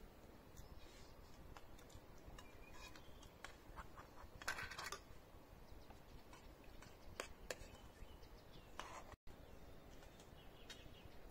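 Faint clinks and scrapes of forks and spoons against metal plates and a steel griddle while people eat, with a louder scrape about four and a half seconds in and another near the end.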